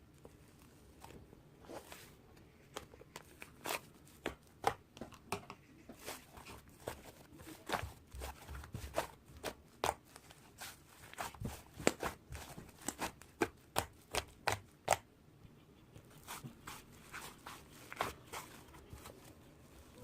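Irregular sharp clicks and light taps, a few a second at their busiest, like small objects being handled.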